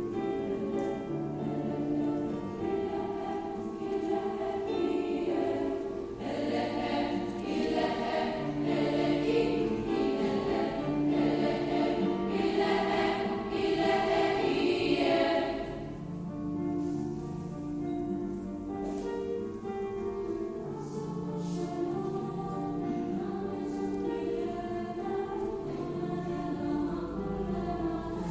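A choir singing sustained, slow chords in several parts. It grows louder through the middle, then falls softer a little past halfway.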